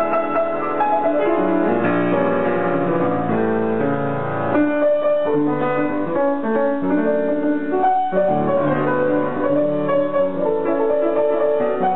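Grand piano played: held chords and melody notes at an even loudness.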